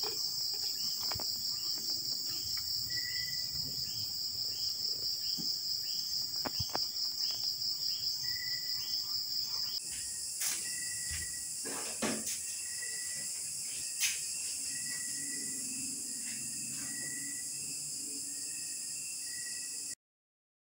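Crickets chirping steadily in a fast pulsing trill, with a few faint sharp clicks. About halfway through the insect sound changes to a higher hiss with short chirps repeating every second or so, and it all cuts off abruptly near the end.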